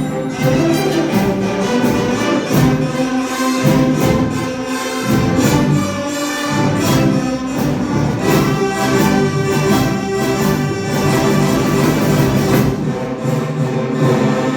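An orchestra playing, bowed strings with some brass, in held chords that change every second or so.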